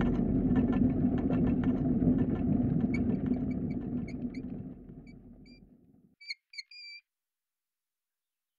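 Train rumbling with regular clicks of the wheels, fading away over the first six seconds. From about three seconds in, a metal weathervane squeaks on its pivot in a series of short squeaks, the last one drawn out.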